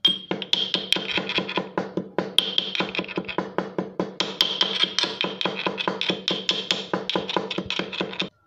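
Roasted cumin seeds being pounded in a steel mortar with a steel pestle: quick, even strikes, each ringing with a metallic tone, with a brief pause about two seconds in.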